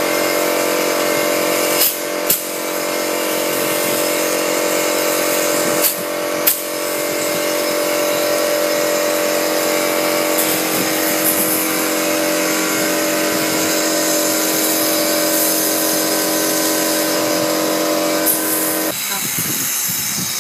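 Air compressor running with a steady hum and even tones, cutting out about a second before the end. Over it a pneumatic clip gun fires with sharp snaps: two quick pairs a few seconds apart early on, and once more near the end.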